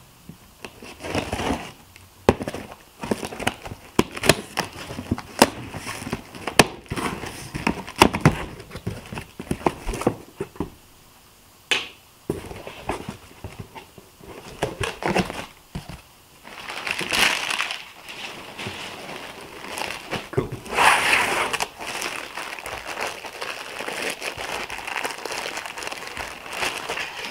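A cardboard shipping box being opened by hand: cardboard rustling and knocking as it is cut and its flaps pulled back, then clear plastic packaging crinkling as a shirt is unwrapped. Irregular clicks and scrapes, with longer bursts of rustling about two-thirds of the way through.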